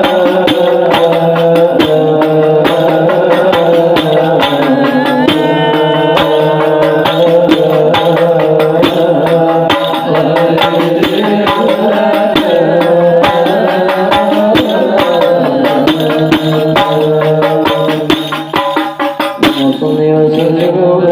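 Devotional maulid verses in Arabic sung together, over hand frame drums struck in a quick, steady rhythm. The singing dips for a moment near the end while the drumming carries on.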